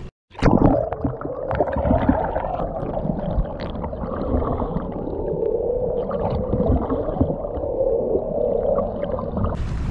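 Muffled underwater sound picked up by a submerged camera: a steady, dull rushing hum with gurgles and small scattered clicks, cut off from all high sounds.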